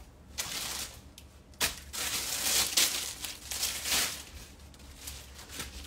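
Close rustling and crinkling noise at the phone's microphone, in two stretches: a short one near the start and a longer, louder one from about a second and a half in to about four seconds.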